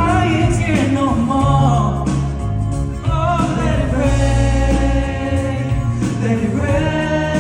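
Live pop ballad: a male voice holds a long, wavering melismatic run on a single Mandarin syllable, accompanied by a band with a steady bass line.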